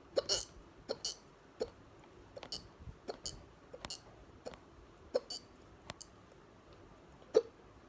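A woman hiccuping repeatedly, about a dozen short, sharp hiccups at uneven intervals, the loudest near the end.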